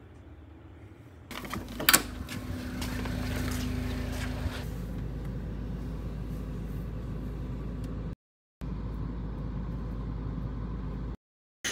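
A car door shuts with a thud about two seconds in, followed by the steady low rumble of the car running, heard from inside the cabin. The sound cuts out completely twice for a moment near the end.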